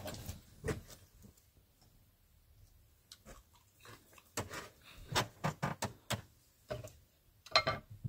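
Handling sounds on a cloth-covered table: a plate is set down, then a wicker basket of vegetables is lifted and put down. These come as a series of light knocks and rustles, with the loudest near the end.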